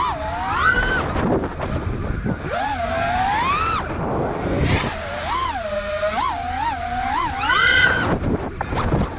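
4-inch FPV freestyle quadcopter's brushless motors whining, the pitch swooping up and down with the throttle, with a run of four quick throttle blips about two-thirds of the way through. The whine drops away briefly three times where the throttle is cut, leaving a rush of wind noise.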